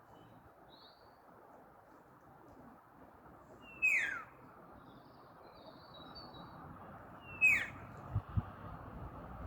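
Common starling giving a short falling whistle, twice, about three and a half seconds apart, with faint higher chirps in between. Two soft low thumps come near the end, over a steady background hiss.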